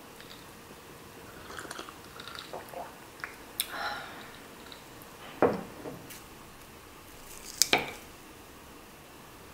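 Drinking and table sounds: soft sips and faint clinks from a glass of iced coffee, a sharp knock about five and a half seconds in as the glass goes down on the table, then two quick sharp clicks near eight seconds as a metal fork strikes the salad plate.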